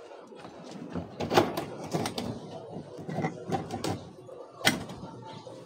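Handling noise from PVC electrical conduit being positioned on steel rebar mesh: irregular knocks, clicks and scrapes, with a sharp click about a second before the end.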